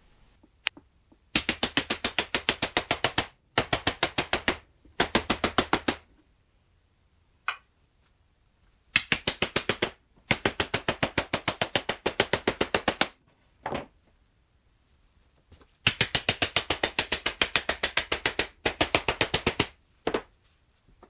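A small hammer tapping rapidly, about eight light blows a second, in several runs of one to three seconds with short pauses between, on a wooden marking strip studded with screws laid on a cabinet panel. A few single knocks fall between the runs.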